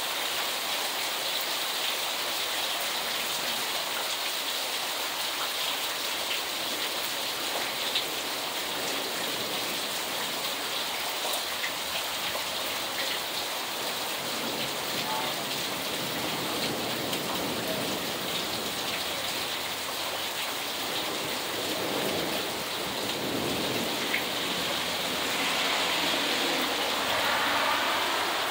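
Steady heavy rain falling on standing water and wet ground, with the odd close drop ticking. The rush grows somewhat louder near the end.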